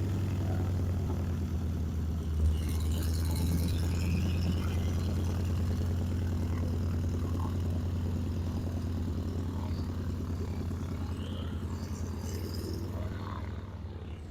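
Piston engine of a vintage propeller airplane running at low power as it taxis, a steady low rumble that slowly fades toward the end.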